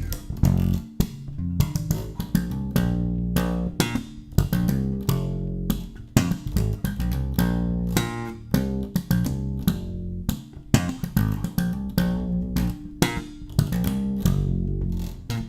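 Electric bass guitar, an ESP LTD B-155DX, playing a gospel bass line: a busy run of plucked notes, several a second, with sharp, clicky attacks.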